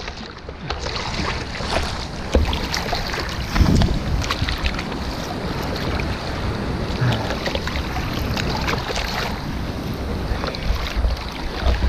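Steady surf noise at the shore, with wind buffeting the microphone.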